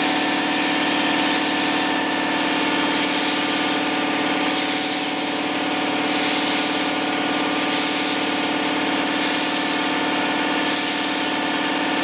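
Compressed-air motor turning the gyro wheel, with its pneumatic aircraft gyro horizons spinning on air: a steady pitched hum over a hiss of air.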